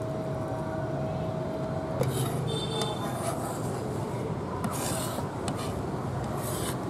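Cleaver blade scraping across a round wooden chopping block, a few scraping strokes. A steady tone runs underneath and stops about two seconds in.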